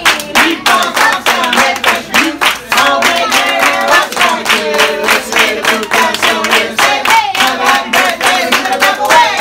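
A group of people singing together while clapping in time, about three to four claps a second.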